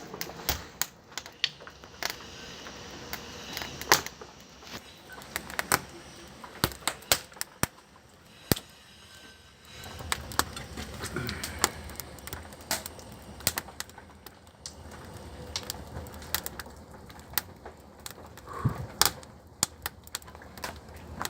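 Wood and paper kindling crackling and popping as a fire catches in the firebox of a newly built brick Russian stove, with irregular sharp snaps.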